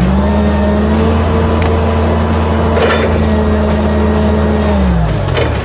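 Electric motor of a remote-control toy tower crane running at a steady pitch, winching its hook line, then slowing with a falling pitch near the end as the control is released. There is one short click about halfway through.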